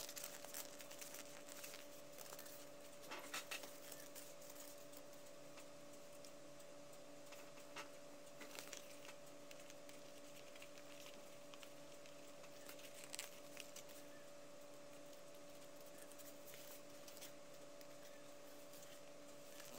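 Near silence with a faint steady hum, broken by a few soft rustles and taps as colour paper is pleated and handled, the clearest a few seconds in and again about two-thirds through.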